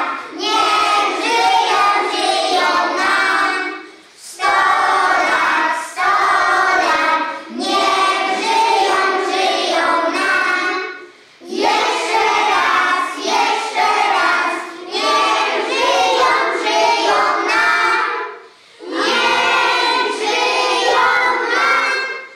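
A group of young children singing together in unison, in long phrases with short breaks between them.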